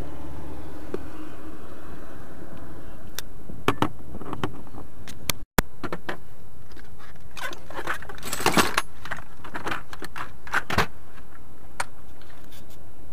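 Metal hand tools clinking and rattling as they are handled: scattered sharp clicks, busiest in the second half, over a steady background hiss.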